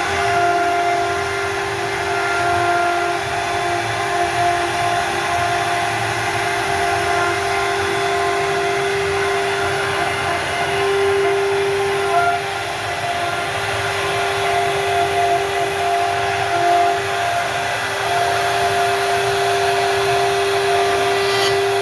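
CNC wood router running with a steady high whine from its spindle over the rough noise of the bit cutting into wood.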